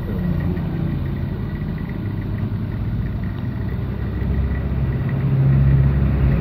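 Steady low hum and rumble of a running motor, growing louder about five seconds in.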